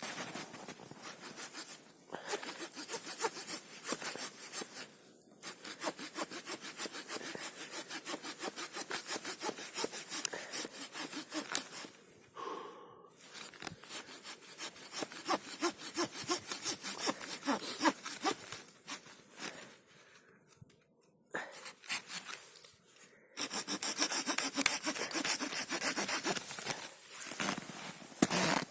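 Small folding wood-saw blade of a Victorinox Rangerwood 55 pocket knife sawing through a stick with quick back-and-forth strokes, in several runs broken by short pauses.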